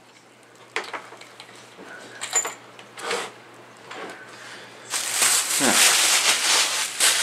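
Bubble wrap being handled and crinkled, with a few scattered crackles at first, then a dense, loud run of crackling from about five seconds in as it is squeezed and pulled out of the box.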